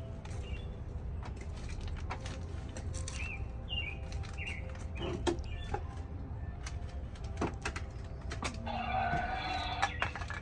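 Small birds chirping over a steady low rumble, with scattered sharp clicks and knocks of plastic toy dishes and a toy pan being handled. Near the end comes a denser, noisier sound lasting about a second.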